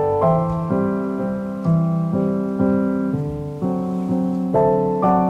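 Background piano music: a gentle run of notes and chords that moves on every half second or so.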